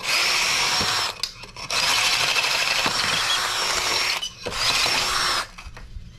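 Power drill with a long bit boring into a Honda CR-V catalytic converter, breaking its honeycomb core to dust to gut the converter. The drill runs in three bursts with short pauses between them, a steady high whine over grinding noise.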